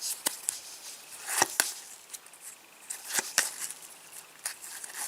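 Trading cards being handled: a few sharp taps and flicks as the cards are leafed through and set down, with faint rustling between.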